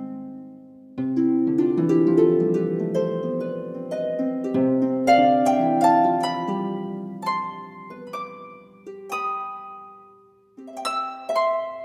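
Gentle harp music: plucked notes in overlapping chords and runs, each note ringing and dying away, fading almost out about ten seconds in before new notes begin.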